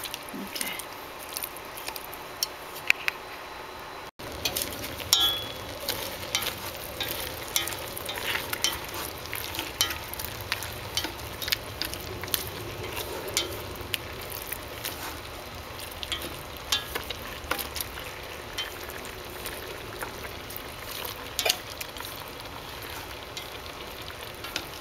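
Marinated pork belly, fish and fried tofu sizzling in a metal pot on the stove, searing so the meat firms up before braising. Chopsticks stirring the pieces click and tap against the pot again and again.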